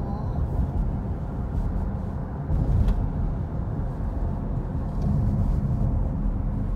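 Road and engine noise inside a moving car's cabin: a steady low rumble, with a brief louder knock about three seconds in.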